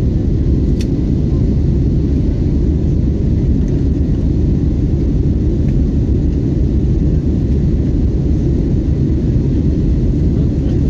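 Steady low rumble of an airliner's engines and airflow, heard inside the passenger cabin, with a faint click about a second in.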